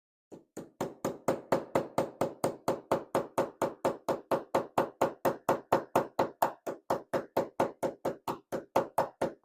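Rapid, even light hammer taps on a tool against a cam lock, about four a second, trying to knock loose a stubborn pin-chamber cap.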